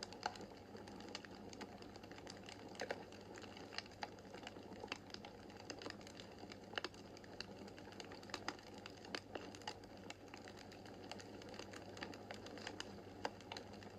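Wood fire crackling in a fireplace: irregular sharp pops and snaps, several a second and some louder than the rest, over a soft steady hiss of the flames.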